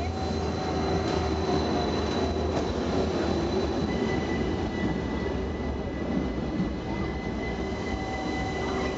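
Rhaetian Railway Bernina line electric train rolling into a station, its wheels squealing on the rails in several steady high tones over a low rumble. A further, higher squeal joins about four seconds in.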